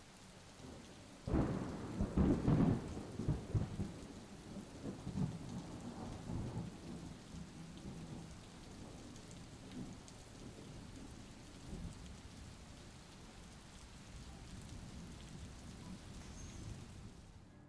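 Thunderstorm: a thunderclap breaks about a second in and rumbles away over several seconds, over steady falling rain.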